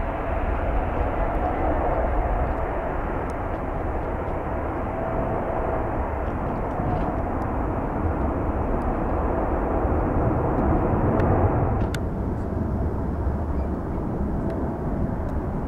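Boeing 777-300ER's twin GE90-115B turbofans at takeoff thrust as the airliner lifts off and climbs away, a loud steady jet roar. About twelve seconds in there is a sharp click, and after it the roar continues slightly duller.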